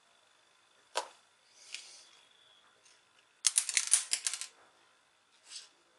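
Hands handling small bench items, scissors and a paper or tape strip: a sharp click about a second in, a short rustle, then a quick run of rapid clicking and rattling lasting about a second, and another brief rustle near the end.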